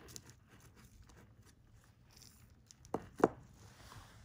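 Fishing sinker set down on the work surface: two sharp knocks close together about three seconds in, the second louder, over faint rustling of line being handled.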